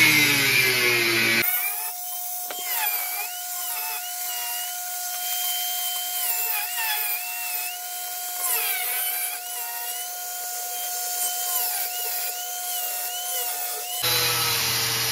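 Handheld angle grinder cutting chromoly steel, loud and harsh for the first second and a half. It then settles into a thinner, steady whine whose pitch dips and recovers again and again as the disc bites into the metal and eases off.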